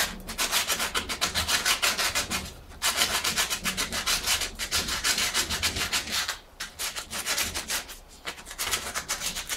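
Coarse P100 abrasive strip rubbed by hand along a metal bicycle rim in quick back-and-forth scraping strokes, with a couple of brief pauses. The rim is being scuffed to strip off dust and grease before painting.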